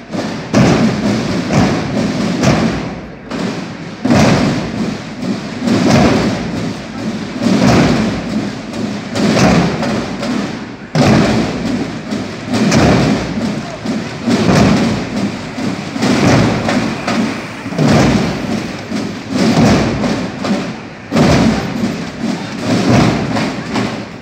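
Drum section of a banda de guerra (marching band) playing a repeating cadence, with a cluster of drum strokes about every second and a half to two seconds.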